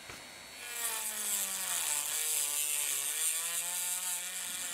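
Dremel rotary tool's cutting disc grinding a slot into the head of a rusted, stripped steel bolt: a high motor whine over a hissing grind, starting just under a second in, its pitch dipping and recovering as the disc bites.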